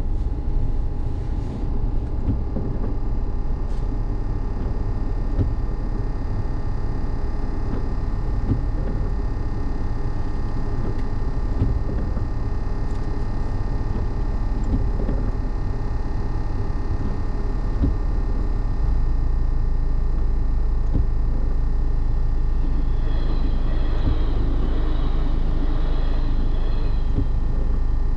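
Steady low rumble of a car idling, heard from inside the cabin, with a steady higher tone running over it. The rumble grows a little louder about two-thirds of the way in, and a faint, quickly repeating high ringing comes in near the end.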